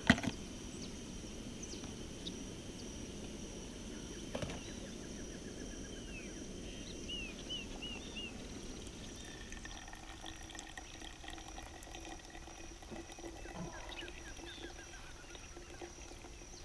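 Just-boiled water poured in a thin stream from an aluminium pot into a paper coffee filter over a thermos jug, brewing filtered coffee.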